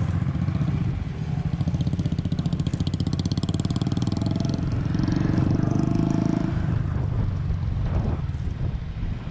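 Single-cylinder motorcycle engine pulling steadily on an off-road track, its note rising about five seconds in and easing off a second and a half later.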